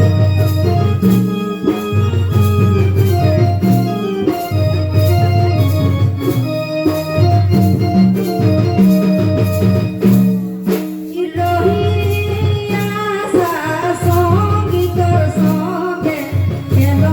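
Folk dance music: an electronic organ-like keyboard plays a repeating melody over a steady drum beat, and a singing voice comes in about two-thirds of the way through.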